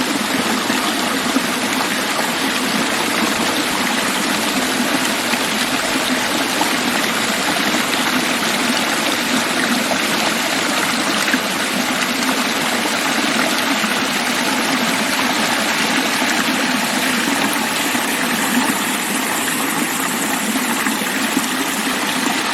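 Waterfall on a mountain brook, a loud steady rush of falling water.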